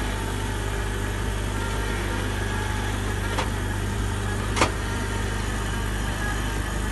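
Coffee vending machine running with a steady motor hum as it mixes and dispenses chocolate and milk into a paper cup. Two sharp clicks, about a second apart, come a little past the middle, the second louder.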